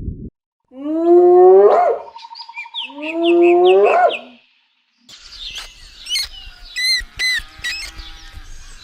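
An animal gives two long calls, each rising in pitch. After a short silence, birds chirp with quick high notes over a faint outdoor background.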